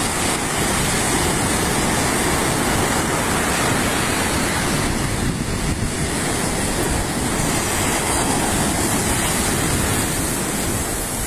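Sea surf: waves breaking on a shore, a steady full rush of noise.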